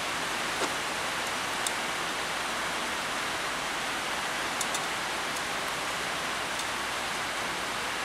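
Steady hiss of rain on a tin roof, with a few faint light clicks.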